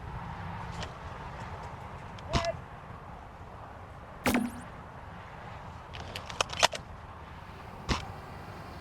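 Silverback VKS airsoft bolt-action sniper rifle with a large suppressor, fired and cycled: a series of sharp clicks and snaps, single ones about two and four seconds in, a quick cluster around six and a half seconds that is the loudest, and one more near eight seconds, over a steady outdoor background hiss.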